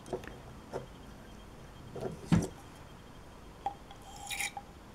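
Handling noise from a small plastic dropper bottle and a glass test tube: a few soft clicks and knocks, a louder knock about two and a half seconds in, a brief squeak, then a short hiss near the end.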